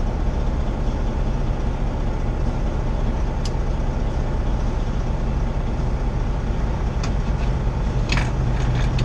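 Semi truck's diesel engine running steadily, heard from inside the cab, its turbocharger failed. A few brief high clicks or squeaks come a few seconds in and again near the end.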